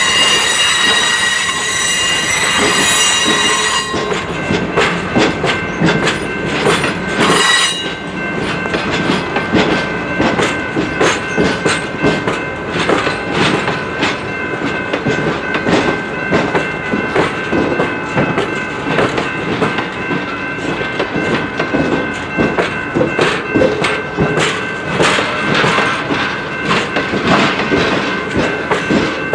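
Steel wheels of the BNSF Office Car Special's stainless-steel passenger cars rolling past on curved track. The wheels squeal with a high ringing tone for about the first four seconds and again briefly around seven seconds in. After that comes a steady clickety-clack of wheels over the rail joints.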